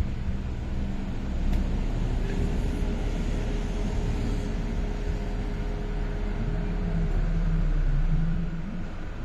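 Steady low engine rumble, with a faint steady hum held for several seconds in the middle.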